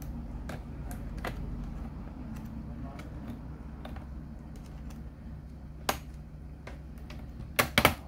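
Plastic snap clips of a Toshiba Satellite L50-C laptop's bottom case clicking loose as the case is pried open with a flat plastic opening tool: scattered light clicks, one louder snap about six seconds in and a quick run of sharp snaps near the end.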